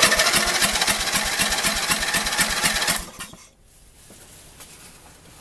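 Briggs & Stratton vertical-shaft mower engine spinning over and firing in a rapid, ragged run of pops for about three seconds, then cutting out suddenly. It is backfiring, which the owner thinks might mean the ignition timing is off.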